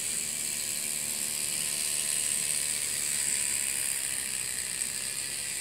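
Miniature steam railroad speeder running on its track, its one-cylinder single-acting steam engine driving the wheels. It makes a steady, fast mechanical whir with a high hiss.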